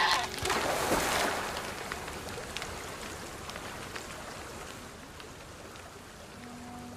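Rushing water of river rapids: a loud burst of rushing noise about a second in that fades to a steady hiss, with a few faint clicks. Low sustained music notes come in near the end.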